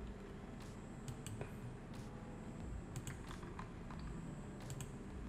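Computer mouse clicking irregularly: scattered sharp clicks over a faint low steady background hum.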